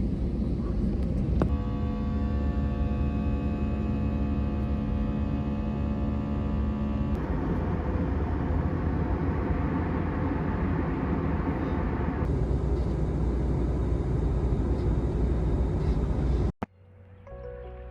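Steady low rumble of a running vehicle, changing abruptly several times as clips cut; for a few seconds a steady hum of several tones rides on it. It cuts off sharply near the end.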